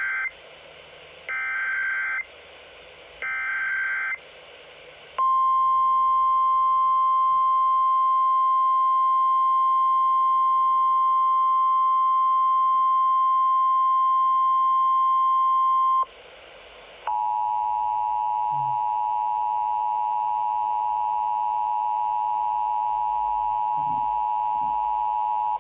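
Emergency Alert System tones received on NOAA Weather Radio. Three short bursts of SAME digital header data come a second apart with radio hiss between them. Then a single steady warning alarm tone holds for about eleven seconds and, after a second of hiss, a harsher two-tone attention signal runs for about eight seconds, heralding the spoken AMBER Alert message.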